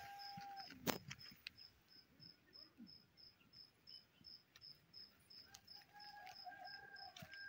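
A cricket chirping steadily, about four to five short chirps a second, with one sharp click about a second in. Faint, drawn-out distant tones come and go in the background.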